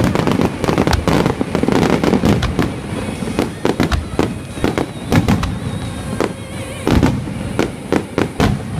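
Festival fireworks going off: a rapid, dense run of bangs and crackles for the first few seconds, then sparser single bursts.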